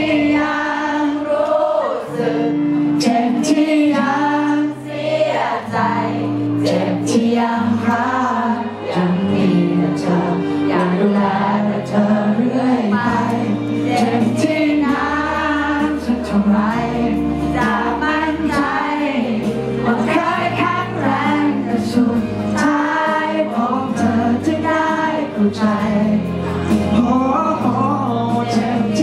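A man singing a Thai pop song into a microphone over instrumental backing.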